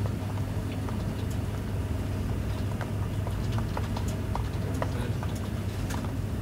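Office room tone: a steady low hum with scattered light clicks and taps coming at irregular intervals.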